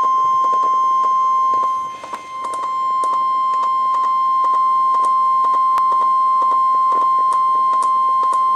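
NOAA Weather Radio 1050 Hz warning alarm tone: one loud, steady high tone with a short dip in loudness about two seconds in and faint clicks of static throughout. It signals that a warning broadcast, here a severe thunderstorm warning, is about to be read.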